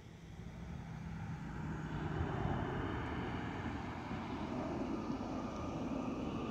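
Jet engine noise from an Airbus A320neo (N947NK) coming toward the listener and passing close by, with its Pratt & Whitney PW1100G geared turbofans. The noise grows louder over the first two seconds and then holds at a steady roar.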